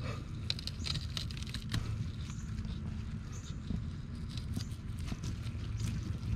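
Small, irregular clicks and crackles of a pocket knife blade cutting and probing into a squash stem, over a low steady rumble. The stem is being slit open to reach and kill a squash vine borer larva inside.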